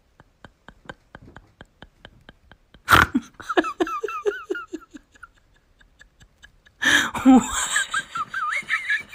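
A person laughing in bursts: a first fit of short, falling 'ha-ha' notes about three seconds in, then a second, longer and higher fit of giggling near the end. Before the laughter there is a faint, fast, even clicking, about five clicks a second.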